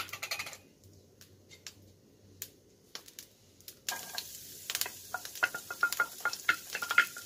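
A few light taps. About four seconds in, chopped garlic and onion hit hot oil in a nonstick frying pan and start to sizzle, while a small metal dish clinks again and again as a spatula scrapes it clean.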